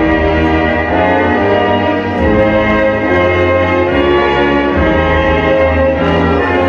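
Orchestral background music, with brass playing held chords that change every second or so.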